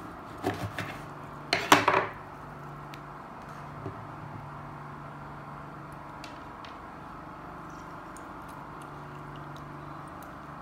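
Kitchen knife cutting through a small green lemon and knocking on the tabletop: a few light clicks, then a louder cluster of sharp knocks about two seconds in. After that only a low steady hum with a few faint ticks.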